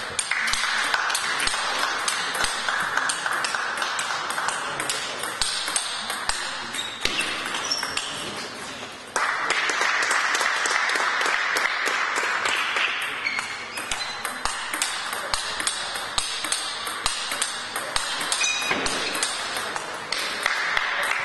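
Table tennis rallies: the ball clicks sharply off the bats and bounces on the table in quick alternating hits, over a steady background hall noise that grows louder about nine seconds in.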